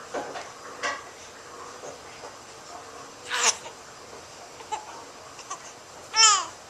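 Baby babbling in short, separate sounds, ending in a loud, high-pitched squeal.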